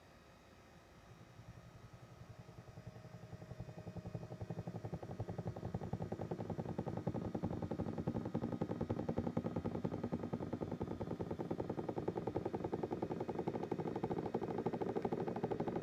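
Doctor Air 3D massage seat running with a fast, even rattling pulse. It starts faint, grows louder over the first several seconds, then holds steady. This is the abnormal noise (異音) that the owner is documenting as a fault.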